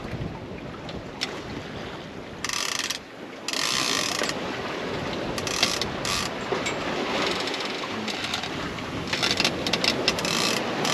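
Fishing reel's ratchet clicker buzzing in several short runs, each about half a second to a second long, with a faster patch of ticks near the end, over a steady rush of wind and water along the hull.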